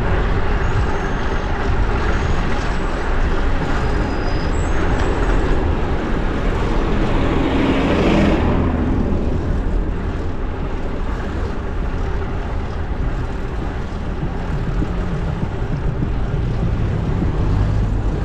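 Wind rushing over the microphone during a bike ride in city traffic, with road traffic running underneath. The traffic noise swells louder about eight seconds in.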